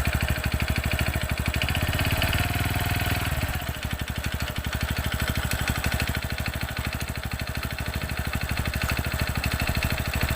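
TVS Radeon BS6 single-cylinder motorcycle engine running at low speed with a rapid, even beat and a mechanical noise from the engine, a little louder for a moment about two seconds in. The mechanic takes the noise for piston slap from a worn cylinder that needs an oversize piston, not a fuel problem.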